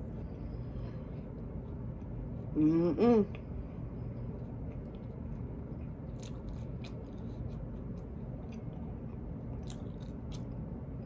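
A person chewing quietly in a small room, with a few faint clicks and smacks from the mouth. About three seconds in comes a brief pitched "mm"-like sound from the voice.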